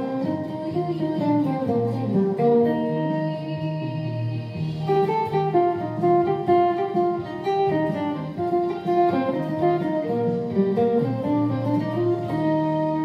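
Acoustic guitar played solo with the fingers: a melody picked over bass notes, ending on a chord struck near the end and left to ring.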